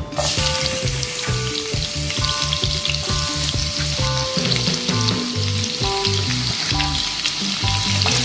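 Chopped garlic hitting hot cooking oil in a nonstick wok: a sizzle starts suddenly and carries on as a steady frying hiss, stirred with a spatula near the end. Background music with a steady beat plays underneath.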